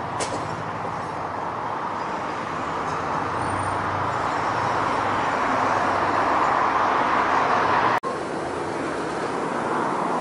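Street traffic: cars passing close, their tyre and engine noise swelling to its loudest just before an abrupt cut about eight seconds in. After the cut there is a quieter, steady street noise.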